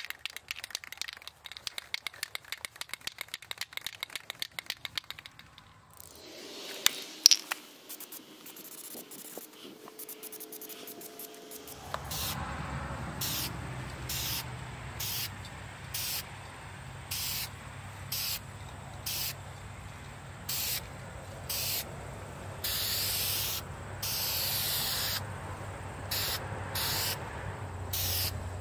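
Aerosol spray can of automotive primer hissing in short separate bursts, roughly one a second and some longer, over a steady low hum. Earlier comes a rapid clicking rattle lasting several seconds.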